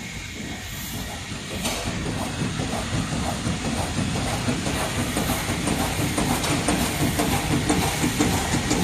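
Microwave popcorn bag packing machine running fast: a steady, rapid mechanical clatter that grows louder about two seconds in as the machine is sped up.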